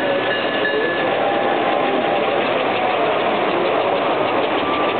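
S-gauge model trains running on the layout's track: a steady mechanical rumble of wheels on rails and running motors.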